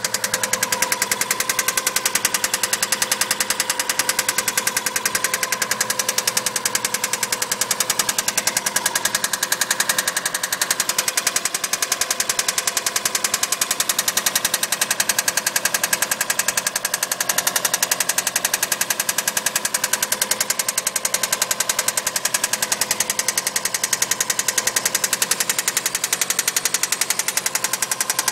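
Subaru EJ20 flat-four engine running steadily with a rapid, evenly spaced knock.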